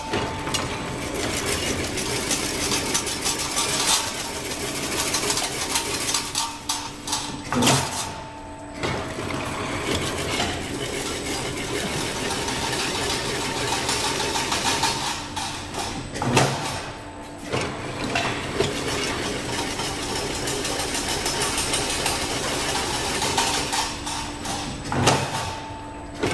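A machine running steadily, with frequent small metallic clicks and clanks and three louder knocks spaced about eight seconds apart.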